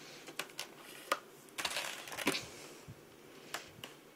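Scissors cutting into a stiff plastic clamshell package: a series of sharp snips and clicks, with crinkling of the plastic around two seconds in.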